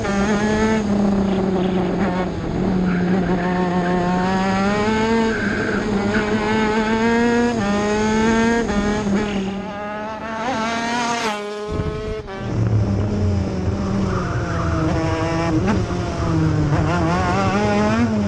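A 125cc two-stroke KZ shifter kart engine at racing speed, its pitch climbing through each gear and dropping at the shifts and on braking. The sound dips briefly about eleven seconds in.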